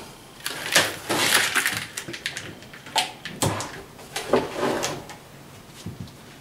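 Shipping-box packing being handled: cardboard and foam pieces scraping and rustling as they are pulled out and set down, with a few sharp knocks.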